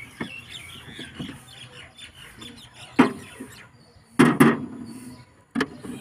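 Sharp knocks and clinks of a steel bar worked against a tight filter under a diesel engine's hood, the loudest a double knock a little past four seconds in, with faint high squeaks and chirps in between.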